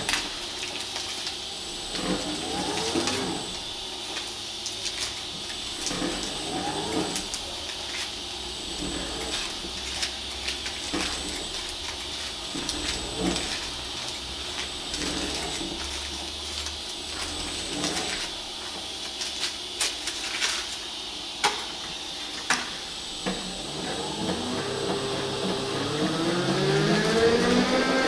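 Masking tape being peeled off an alloy wheel in long pulls, each pull a squeak that rises and falls in pitch, with small clicks in between. Near the end an electric paint dryer starts up, its motor whine rising in pitch and then holding steady.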